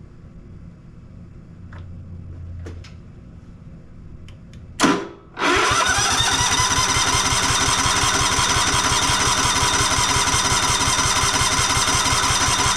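Electric starter cranking the Cub Cadet XT2's 679cc EFI single-cylinder engine, a steady fast-pulsing churn. There is a brief first burst about five seconds in, then a long crank of about eight seconds. The engine never catches: it cranks but won't start.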